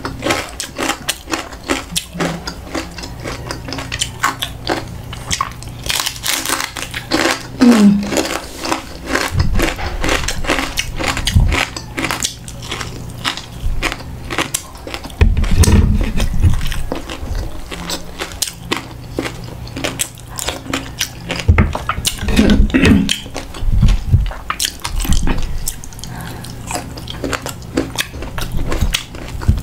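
Close-up crunching and chewing of crispy deep-fried buntot: many sharp crackling bites with wet chewing in between, in quick uneven succession.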